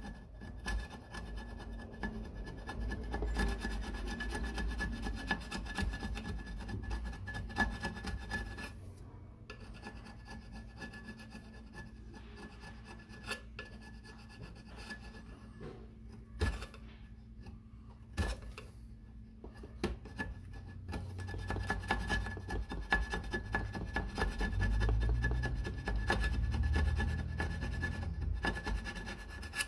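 Hand scraping and rubbing along the gasket flange of a 2007 Triumph Bonneville's cast-aluminium engine case, stripping old residue in continuous rasping strokes. The strokes get louder twice, a few seconds in and again in the last third. A faint steady high whine runs underneath.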